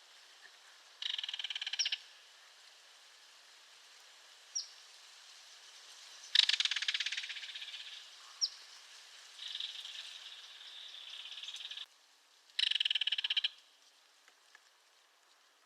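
Belted kingfisher giving its dry, mechanical rattle call in three loud bursts of about a second each, the middle one trailing off, with a quieter buzzing stretch of a couple of seconds between the last two. Two short high chirps come between the rattles.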